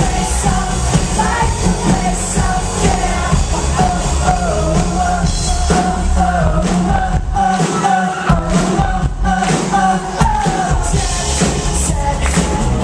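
Live pop-rock band playing, with the lead singer's voice over drums, bass and electric guitar, heard from the crowd through a small camcorder microphone. The bass drops out for a couple of seconds in the middle, then comes back.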